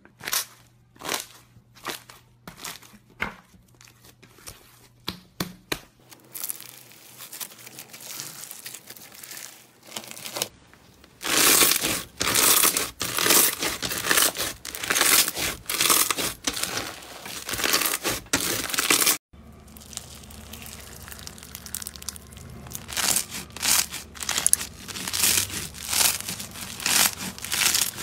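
Slime squished and kneaded by hands. First come separate sharp pops from air pockets in clear slime. Then loud, dense crackling and crunching as floam packed with foam beads is worked, and after a sudden cut about 19 seconds in, more crinkly crunching from crunchy slime.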